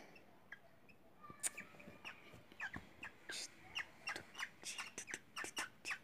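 Cockatiel making a rapid, irregular run of short downward chirps and clicks, faint. They grow busier about halfway through.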